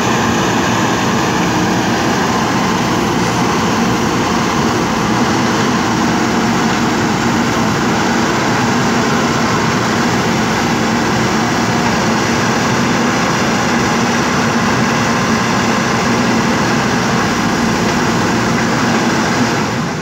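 JCB 3DX backhoe loader's diesel engine running steadily and loudly while the backhoe arm is worked.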